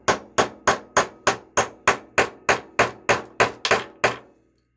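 Light, even hammer taps on a 13 mm socket pressing on a ball bearing's outer race, driving the bearing into a Traxxas Pro 15 nitro engine's crankcase. There are about fourteen quick ringing taps, roughly three a second, and they stop a little after four seconds in.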